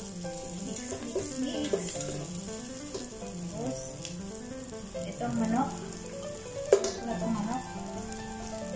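Sliced onions sizzling as they fry in a pot, stirred with a spatula, with a sharp knock about two-thirds of the way through. Background music with a melody runs underneath.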